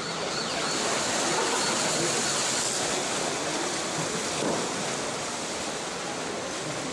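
Splashing from swimmers kicking with fins and diving at the surface of a pool, heard as a steady wash of water noise that is louder in the first few seconds.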